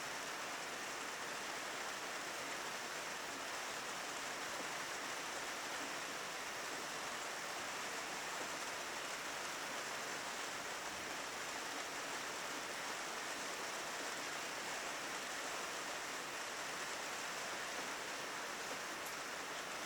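Steady rainfall, an even hiss that holds without change.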